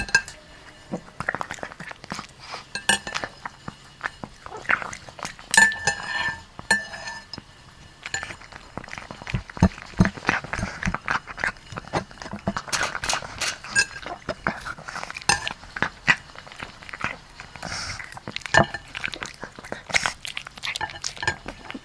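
A dog and a chicken scuffling: an irregular run of sharp taps and clicks, with a few short high calls about six seconds in.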